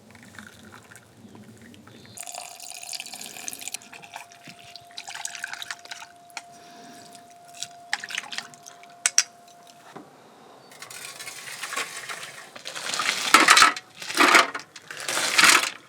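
Liquid being poured and splashing in several short loud bursts toward the end, with a faint steady tone held for several seconds earlier on.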